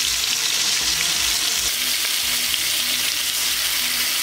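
Spice-coated koi fish (climbing perch) frying in hot oil in an aluminium kadai: a steady, dense sizzle with fine crackling.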